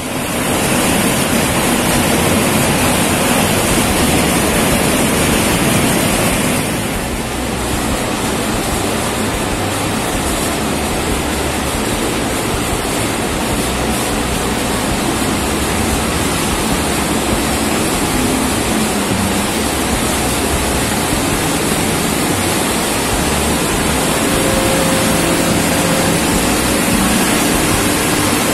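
Steady loud rushing of a large dyno-cell cooling fan blowing air at the truck, with the Hilux's 2.8-litre diesel engine running underneath. The rush changes slightly about seven seconds in.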